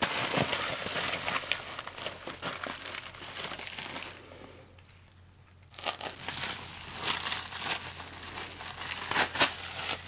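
Packaging crinkling and rustling as parts are unwrapped, pausing for about a second and a half near the middle.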